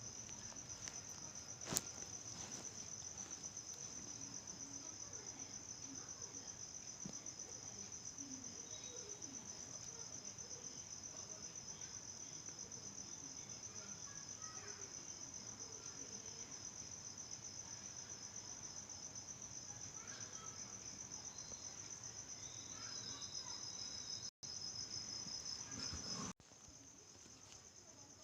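Insect trilling steadily at a high pitch in fast, even pulses, with a sharp click about two seconds in. The trill cuts out briefly twice near the end and is quieter after.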